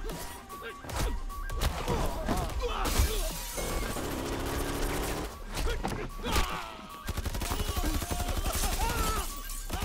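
Film action soundtrack: repeated gunfire and sharp hits over a dramatic music score.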